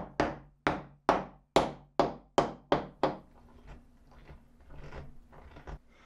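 One-handed trigger bar clamps being ratcheted tight on a plywood jig: about nine sharp clacks, roughly two or three a second, over the first three seconds, then a few fainter knocks.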